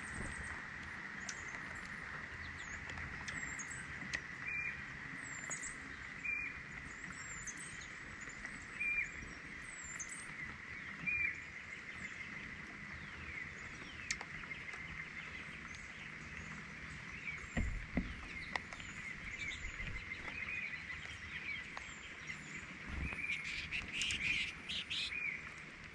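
Wild birds calling with short high chirps every second or two over a steady rain hiss. Near the end comes a quick cluster of sharp taps as a red-bellied woodpecker pecks into a seed tray.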